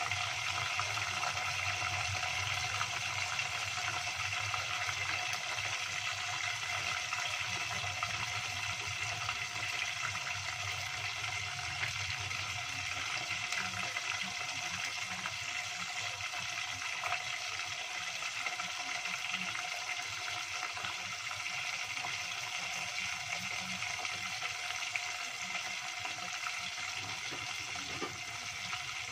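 Chicken pieces deep-frying in hot oil in a small pot, a steady sizzle.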